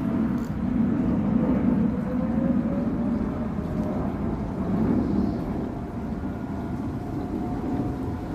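Outdoor tornado warning siren heard faintly from afar, its wail held near one pitch with a slow upward slide a few seconds in, under a louder steady low rumble.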